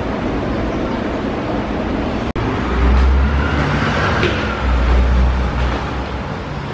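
Steady street traffic noise, cut off by a brief dropout about two seconds in, after which a heavy low rumble of camera handling and footsteps runs while the camera is carried up a stairwell.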